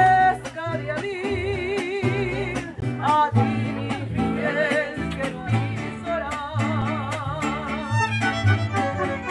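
Mariachi playing a song live: a violin melody with vibrato over a guitar rhythm and a bass line.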